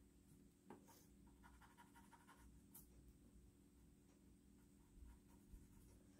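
Faint scratching of a #2 graphite pencil sketching on paper, in short strokes, over a low steady hum.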